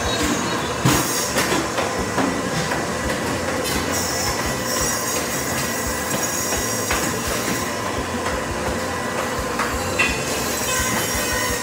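Industrial band saw running with a steady whine and squeal as frozen tuna is fed through it, over the din of processing-line machinery. A couple of sharp knocks stand out, one about a second in and one near the end.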